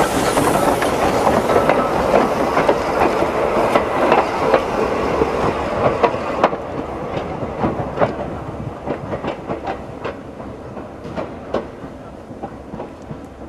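Peckett tank steam locomotive and its carriage passing close by, hissing steam, with wheels clicking over the rail joints. The hiss stops abruptly about six seconds in, and the wheel clicks go on, fading as the train moves away.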